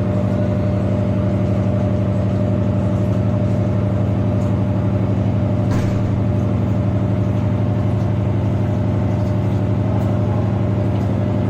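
Electrolux LTD13 washing machine in its spin cycle: the motor and drum run with a steady hum at constant speed, with one brief click about six seconds in.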